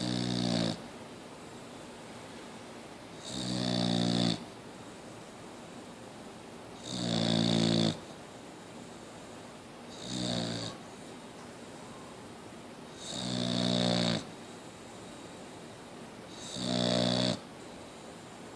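Boxer dog snoring steadily in her sleep: six slow, regular snores, about one every three and a half seconds. Each is a low buzzing snore lasting about a second, with a hissy edge.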